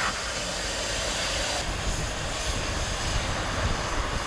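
Narrow-gauge steam locomotive standing with steam hissing, a steady rush over a low rumble. The hiss turns duller about one and a half seconds in.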